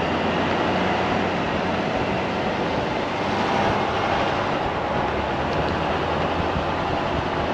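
Steady road and wind noise from a Chevrolet Silverado 2500 pickup towing a caravan along a dirt track, tyres rolling and the engine running underneath.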